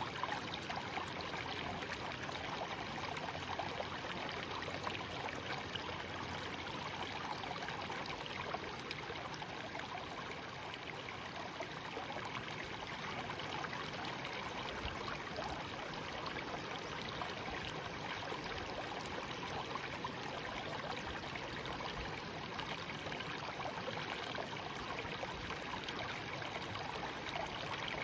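Shallow stream babbling steadily, water running and trickling over stones.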